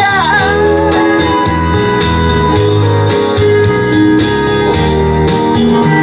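Instrumental backing music of a trot song, with the last sung note trailing off in the first half second.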